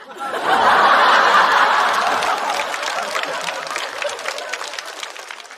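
Studio audience laughing and applauding, loudest about a second in and then gradually dying down, with scattered claps continuing toward the end.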